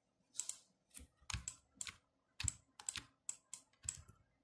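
Faint, irregular clicking and tapping at a computer desk: about a dozen quick keyboard and mouse clicks, spaced unevenly.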